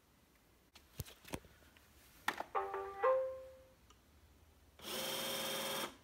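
iRobot Roomba e5 robot vacuum: two clicks, then its short electronic start-up tune, then its motors whir for about a second and cut off abruptly. The motors quitting is the Error 11 fault, a loss of suction from a failed suction motor in the cleaning head module.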